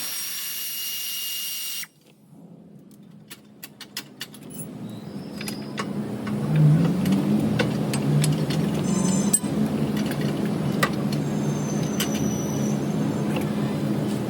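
A car running with a steady low hum, after a spell of sharp clicks and light rattles; the hum builds up over a couple of seconds near the middle and then holds steady. At the very start a steady tone cuts off abruptly.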